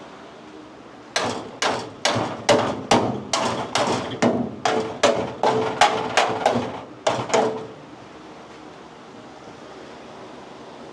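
A hammer striking car-body sheet metal in a rapid series of about seventeen blows, roughly three a second, each with a short metallic ring, stopping about eight seconds in.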